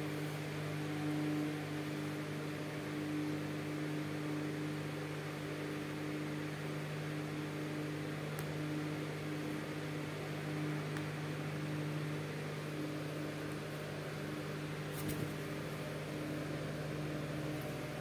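Steady low electrical hum over an even background hiss, with a faint click or two.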